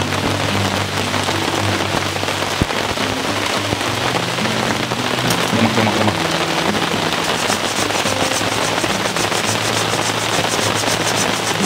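Heavy rain falling steadily onto a surface, a dense even hiss. From about halfway through, a fast run of drop ticks comes in at roughly five a second.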